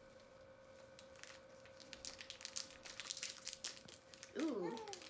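Plastic wrapper of an Umaibo corn-puff snack stick crinkling and tearing as it is pulled open by hand, a quick run of crackles. Near the end a short vocal sound cuts in.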